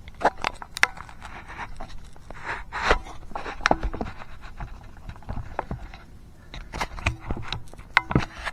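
Irregular knocks, clicks and scrapes of things being handled and moved about in the cabinet under a bathroom sink.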